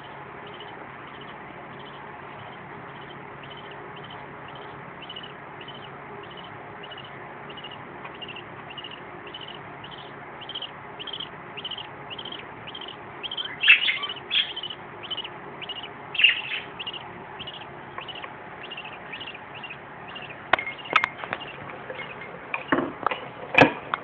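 Budgerigar chicks in a nest box giving rapid, evenly repeated high chirps, about two to three a second, the begging calls of chicks being fed by the adult, with a few louder calls in the middle. Several sharp knocks near the end.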